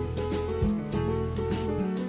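Background music: melodic pitched notes over a steady beat.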